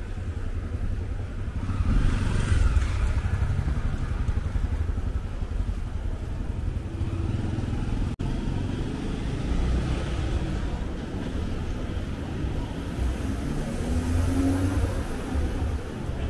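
Street traffic: car and motor-scooter engines running and passing close by, with a steady low rumble that swells about two seconds in and again near the end.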